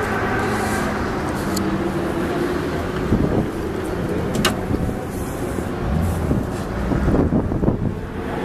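Car engine idling steadily, with low rumbling knocks on the microphone near the end.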